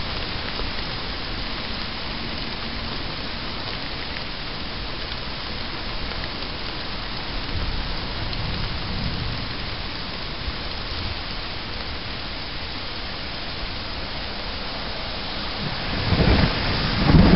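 Steady heavy rain falling, with a low rumble of thunder about halfway through. Near the end, gusts of wind start buffeting the microphone.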